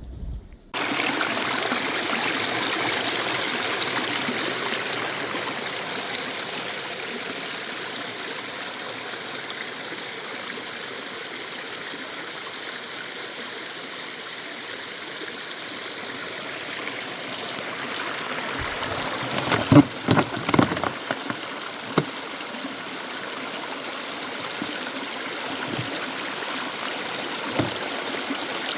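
Running water flowing steadily. A few sharp knocks come a little past two-thirds of the way through.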